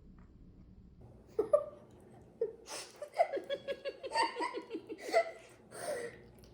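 A woman laughing, breaking into a fast run of giggles about a second and a half in, in reaction to a strange-tasting lychee snack.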